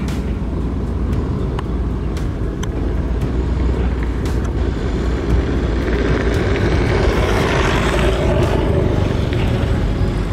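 SDLG wheel loader's diesel engine running under load, getting louder and harsher about six seconds in as the loaded coal bucket is raised over the dump truck.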